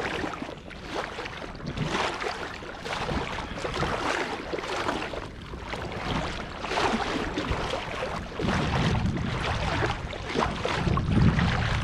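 Shallow water swishing and sloshing around the legs of someone wading across a sand flat. Wind buffets the microphone in a low rumble from about two-thirds of the way in.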